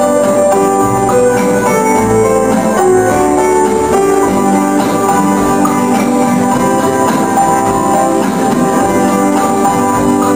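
Beguine dance music playing steadily: a melody of held notes over an accompaniment, at an even level.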